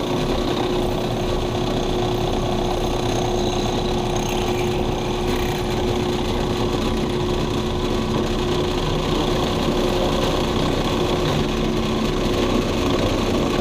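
Drill press running steadily, humming at one constant pitch, as a small bit cuts a pilot hole through a metal table leg under light feed pressure.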